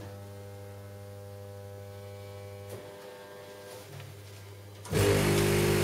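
Ice vending machine humming steadily, then about five seconds in its pump starts up, much louder, with a steady motor running noise.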